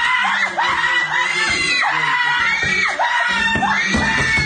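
A group of people screaming and cheering in celebration of being announced the winner, many high voices overlapping without a break.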